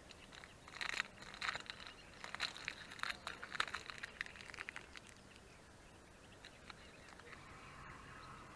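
Plastic protein-bar wrapper crinkling as it is torn open and handled: a run of sharp crackles lasting about four seconds. Near the end a steady whir starts as a fishing reel is wound in on a hooked fish.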